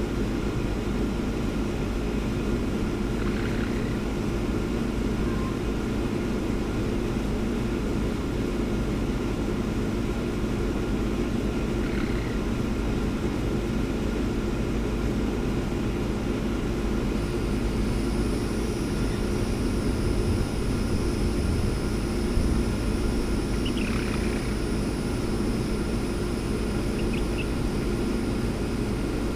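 A young hen giving a few soft, short chirps and trills, spaced several seconds apart, over a loud steady low hum. A steady high-pitched whine joins a little past halfway.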